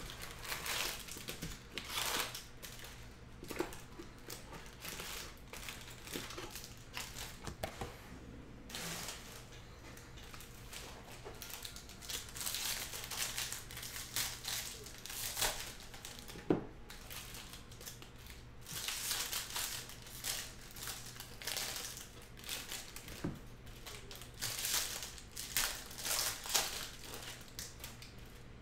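Bowman baseball card pack wrappers crinkling and tearing as packs are opened and the cards are handled, in irregular bursts of rustling with short pauses between.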